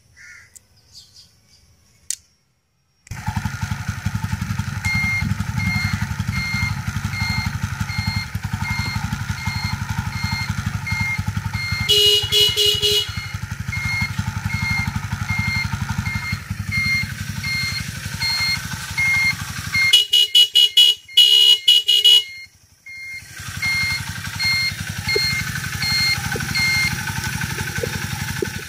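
A 70cc single-cylinder motorcycle engine starts about three seconds in and idles steadily, with the turn-signal buzzer beeping about one and a half times a second. The electric horn sounds once for about a second, then gives a few short honks and a longer one, all working off four capacitors wired in parallel in place of the dead battery.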